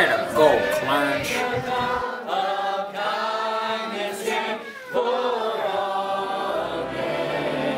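A crowd of young people singing together as a group chorus.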